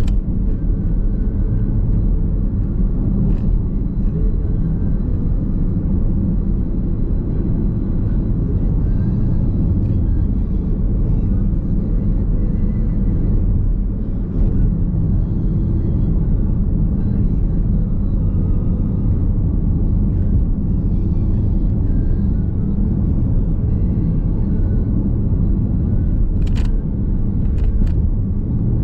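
Nissan X-Trail Hybrid driving, heard from inside the cabin: a steady low road and tyre rumble. A few sharp clicks come near the end.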